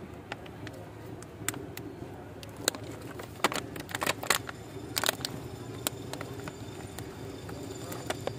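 A plastic bottle watering a seed tray: scattered sharp clicks and crackles, thickest in the middle, over a steady low hum.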